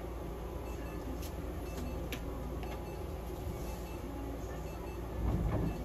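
Steady low hum of an exam room with small clicks of handling, faint short high beeps recurring, and a low thump near the end.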